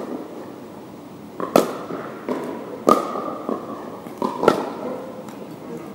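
Pickleball rally: paddles hitting a hollow plastic pickleball in sharp pops, three loud hits roughly one and a half seconds apart with fainter ticks between. Each pop rings briefly.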